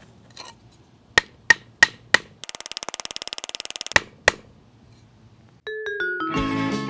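A wooden stake being knocked into the ground with sharp, single knocks, a few in a row with a quick rattling run of ticks in between. Background music starts near the end.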